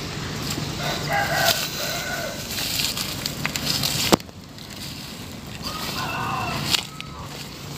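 A rooster crowing twice, once about a second in and again about six seconds in. A sharp click comes a little past halfway.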